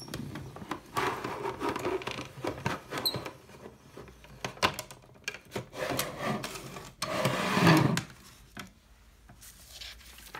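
The plastic hand crank and rollers of a Barbie Fashion Maker toy printing press being turned, grinding a strip of paper and carbon paper through with a rubbing, scraping sound and small clicks. This is followed by paper rustling as the printed sheet is pulled out and handled, loudest about seven seconds in.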